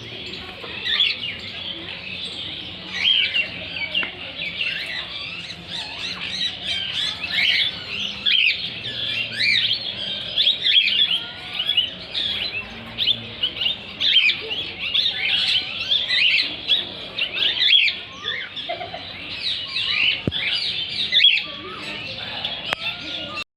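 Many parrots calling at once: short, overlapping chirps and squawks that keep on without a break.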